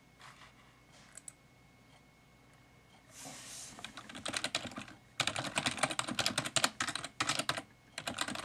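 Typing on a computer keyboard: a few scattered clicks at first, then fast, dense keystrokes from about three seconds in, heaviest in the second half with brief pauses.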